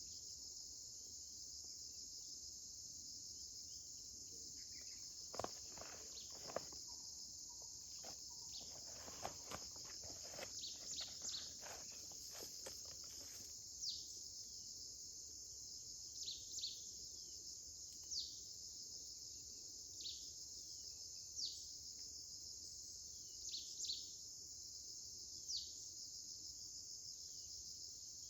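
Steady high-pitched chorus of crickets or similar insects. Partway through come a few knocks and rustles, and then a bird gives short falling chirps about every two seconds.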